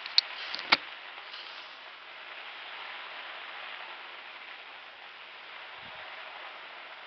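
Fireworks going off: two sharp cracks within the first second, the second the louder, over a steady hiss, with a dull low thump about six seconds in.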